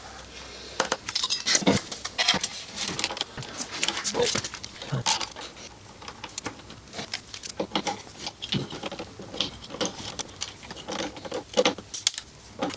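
Irregular metallic clinks and knocks of hand tools and exhaust parts being handled while the titanium silencer is refitted to the motorcycle.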